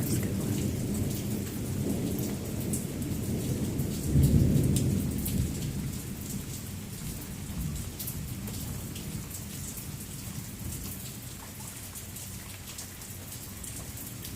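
Thunder rumbling over steady rain, loudest about four seconds in and then fading away.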